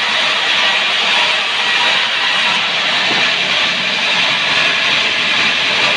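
Sawmill saw cutting through a sengon log: a loud, steady rushing noise that runs without a break.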